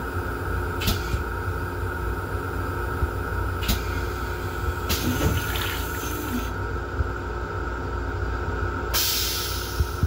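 M7 railcar toilet flushing: water sprays into the stainless steel bowl for about a second and a half around the middle, and a hiss starts near the end. A steady low rumble runs underneath, with two sharp clicks in the first few seconds.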